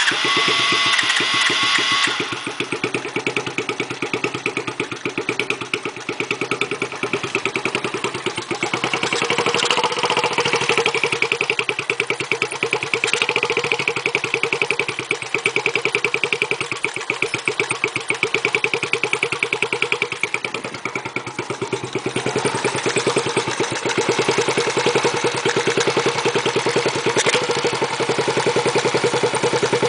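Monkey chopper minibike with a new aftermarket exhaust: the engine starts with a whine for about two seconds, then runs at idle with a rapid, even exhaust beat. The revs lift a little about ten seconds in and again about two-thirds through.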